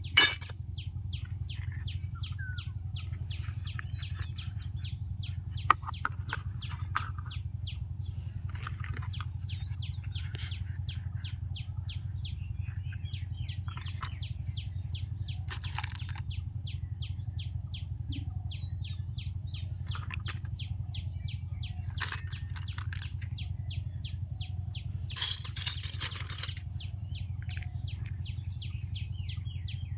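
Scattered sharp clicks and taps of small plastic toy kitchen pieces being handled, loudest at the very start and in a short cluster near the end. Underneath is a steady low hum and a rapid, fast-repeating chirping in the background.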